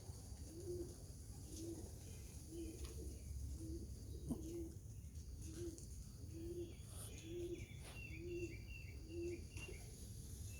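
Domestic pigeon cooing: a steady series of short, low coos, a little more than one a second. Small birds chirp over it in the second half.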